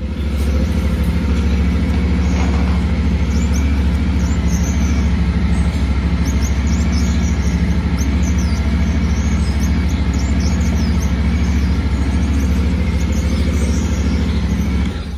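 Yamaha Ténéré 700's 689 cc parallel-twin engine idling steadily with an even low pulse, then shut off near the end.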